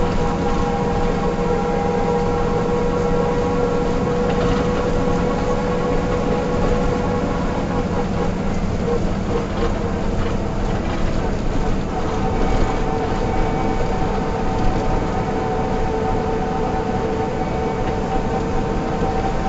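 Mercedes-Benz O305 city bus running with its diesel engine, a steady drone with a constant whine over a low rumble; a second, higher whine joins about twelve seconds in.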